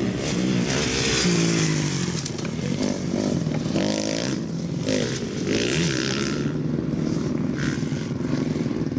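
Motocross dirt bike engines revving hard, the pitch climbing and dropping again and again as the bikes shift gear and back off around the track.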